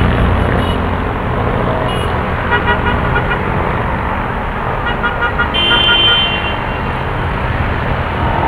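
Steady road traffic rumbling up from a multi-lane boulevard below, with short high beeping tones about two and a half seconds in and again near six seconds.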